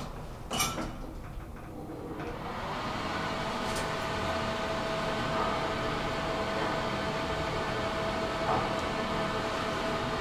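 Elevator car closing up and starting to travel: a sharp click as the doors finish closing, then from about two seconds in the car gets under way with a steady hum and running noise from the drive and the moving car.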